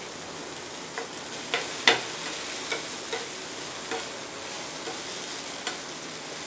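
Chopped onion, curry leaves and tomato sizzling in oil on a flat griddle pan while being stirred. A metal spatula clicks and scrapes against the pan about nine times, loudest about two seconds in.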